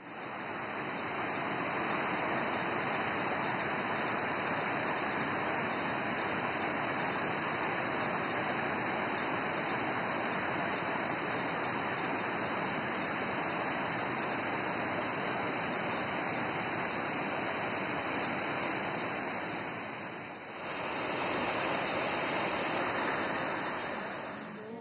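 Waterfall and churning river water rushing, a loud steady wash of noise that dips briefly about twenty seconds in before returning.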